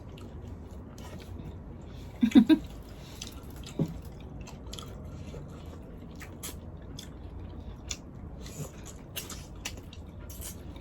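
Close-up chewing of boiled seafood, with scattered small wet clicks and smacks of mouth and food, and a brief voice sound about two seconds in.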